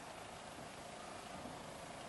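Faint, steady outdoor background noise, an even hiss with no distinct event.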